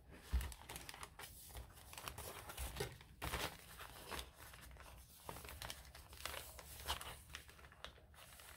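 Faint, irregular rustling and crinkling of the journal's paper pages as they are handled while the sewing string through the signatures is pulled tight, with a few small taps.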